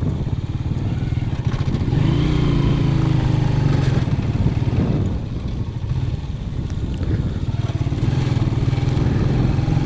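Motorcycle engine running steadily while ridden. The engine note eases off about five seconds in and picks up again a couple of seconds later.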